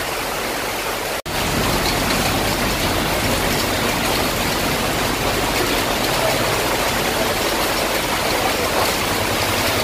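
Heavy rain pouring down and muddy floodwater running along a street, a steady hiss and wash. It cuts out for an instant about a second in, then carries on a little louder with more low rumble.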